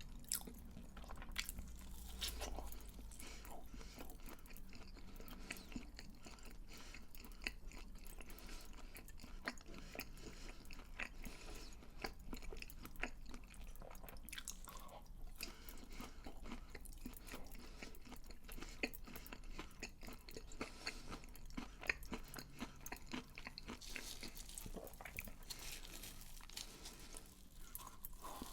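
Close-miked chewing of crunchy fried food, with many crisp crunches and bites following one another without pause.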